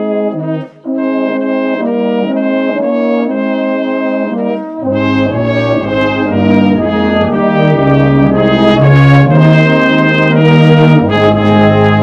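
Brass band playing, with cornets or trumpets and tuba. Deep bass notes join about five seconds in and the music grows louder, reaching a sustained chord near the end.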